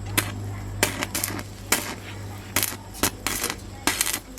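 Irregular sharp metallic taps and clinks, about ten in four seconds, some in quick pairs: metal tools and parts knocking together as a bicycle is worked on. A low steady hum runs underneath.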